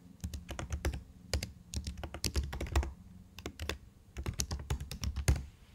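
Typing on a computer keyboard: quick runs of keystrokes with a short pause about three seconds in.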